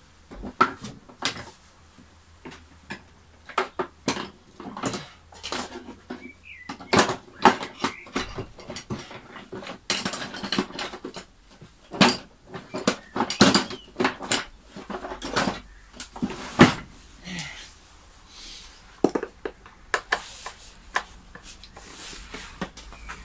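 Irregular knocks, clicks and clatter of hand tools and parts being handled during the strip-down of a vacuum cleaner, busiest and loudest through the middle.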